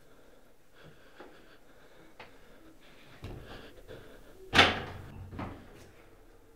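A door slamming shut with one loud bang about four and a half seconds in, which rings on for a moment, followed by a smaller knock. Faint taps and a low rumble come before it.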